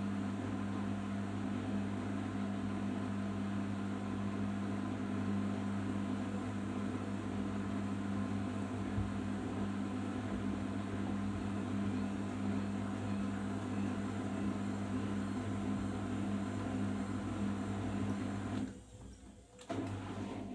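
Arçelik 5083 washing machine running steadily in the final rinse and spin stage of a cotton 60°C program, a continuous motor-and-pump hum with a strong low tone. Near the end the sound drops away for about a second and then comes back.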